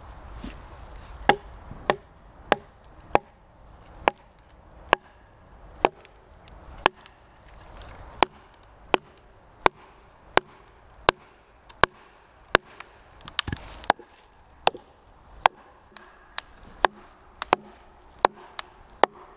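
A wooden mallet knocking on the back of an axe head, driving the axe along a split log. Sharp wooden knocks come about every two-thirds of a second, a little quicker in the second half.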